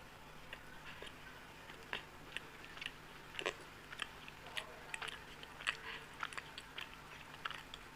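A person chewing and eating soft Indian sweets close to the microphone: irregular wet mouth clicks and lip smacks, several a second at times.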